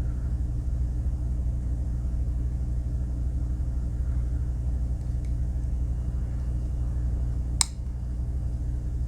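Steady low mechanical hum of room background noise, with one sharp click about three-quarters of the way through.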